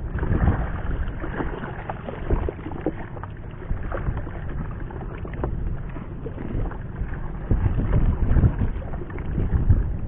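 Water slapping and sloshing against the hull of a small paddled fishing boat, with irregular knocks and a low rumble of wind on the microphone.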